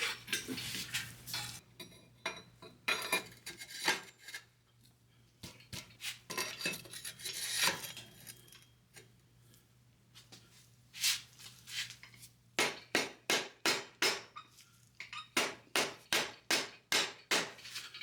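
Steel tools and parts clinking and clattering on the VW Beetle front beam as the torsion-bar set screws are fitted. Scattered clinks at first, then a run of evenly spaced metallic clicks, about two or three a second, through the last few seconds.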